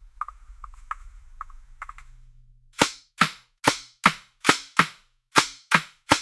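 Faint scattered crackling, then a steady run of sharp knocks about two and a half a second, each cut short.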